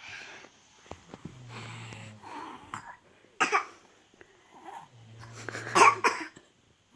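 A toddler fake-snoring on request: low, rasping snores with two short, sharp, loud bursts, one about three and a half seconds in and a louder one near the end.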